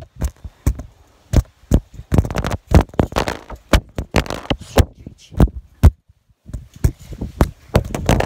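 Rough handling noise from a phone being shaken and jostled: loud, irregular knocks and thumps about two to three a second, with rustling between them and a brief lull near six seconds in.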